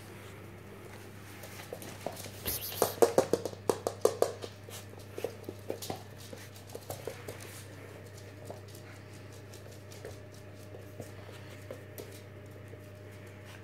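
Wire fox terrier puppies' claws clicking on a hardwood floor as they scamper about. There is a quick run of loud clicks about three seconds in, then scattered clicks.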